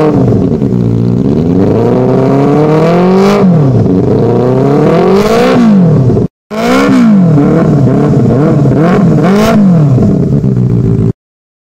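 Benelli 600i's inline-four engine revved repeatedly through its exhaust, the pitch climbing and falling back with each blip. The sound drops out briefly a little past six seconds in and stops abruptly near the end.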